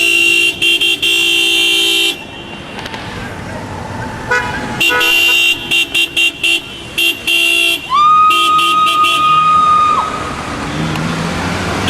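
Car horns honking in bursts: several short toots and longer blasts. About two-thirds of the way through, a single higher-pitched horn note holds steady for about two seconds.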